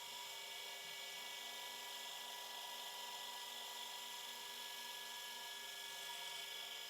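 Milling machine running steadily, a constant whine made of several fixed tones, while cutting small key stock down to size.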